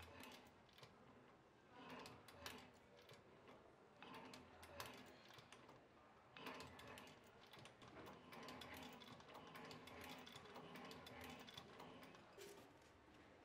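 Cylinder-arm leather sewing machine stitching a sneaker's heel lining: the needle mechanism clicks rapidly in a few short bursts, then in a longer continuous run in the second half.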